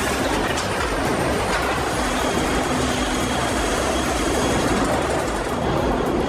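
Sawmill production-line machinery running steadily: a continuous rumble and clatter with a faint steady hum.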